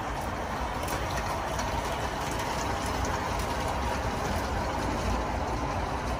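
G scale model train running on garden track: steady running noise of its wheels on the rails and its motor gearing, with the locomotive's sound effects switched off.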